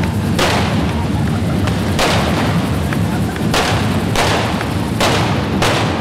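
Correfoc fireworks going off as sparks shower over the crowd: six sharp, irregularly spaced firecracker bangs, with small crackles between them, over a steady loud din.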